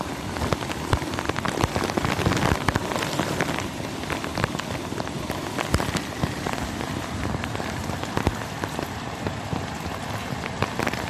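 Heavy rain falling steadily: a dense hiss of rain with many sharp, close drop hits scattered through it.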